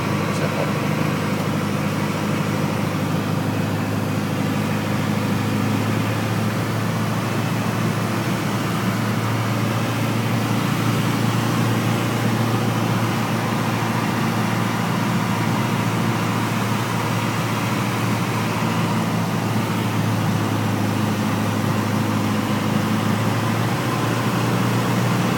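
Single-engine light aircraft's piston engine and propeller running steadily at takeoff power, heard inside the cockpit, through the takeoff roll and climb-out.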